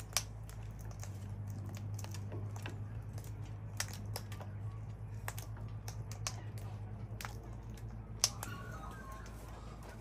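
Sulphur-crested cockatoo pecking and cracking seed on a wooden deck: irregular sharp clicks of the beak, two louder than the rest, over a steady low hum.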